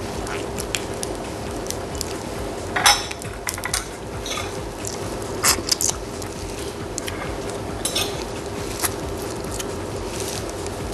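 Hands peeling boiled shrimp, with scattered sharp cracks and crinkles of the shells, loudest about three and five and a half seconds in, over a steady low hum.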